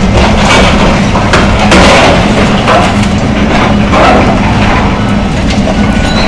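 John Deere excavator tearing down a building: repeated cracking and splintering of breaking wood and falling debris over the steady drone of the excavator's engine.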